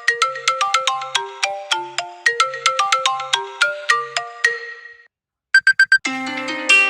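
Phone ringtone: a fast, bright melody of short pitched notes, about four or five a second, repeating, then fading out about five seconds in. After a brief gap come four quick short beeps, and a fuller plucked-string melody starts near the end.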